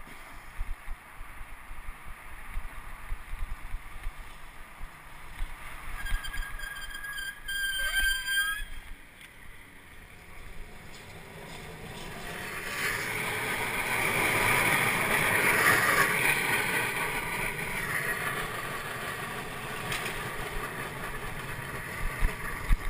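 Wind rushing over the camera microphone of a moving bicycle in street traffic. About six seconds in there is a high squeal for a couple of seconds that drops in pitch as it ends. From about twelve seconds a louder noise swells and fades as a streetcar moves past close by.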